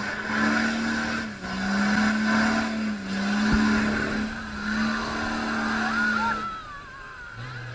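Off-road 4x4's engine held at high revs, wheels spinning as it ploughs through a deep mud pool, with splashing mud. The revs dip briefly twice, then the engine note drops away near the end as the throttle comes off, followed by a few faint high squeaks.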